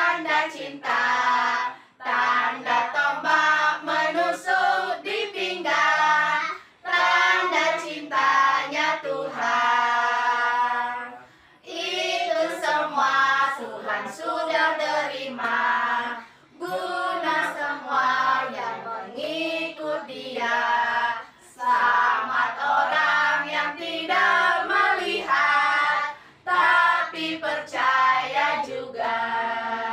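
Children singing a song in sung phrases, each lasting a few seconds, with short breaks between them.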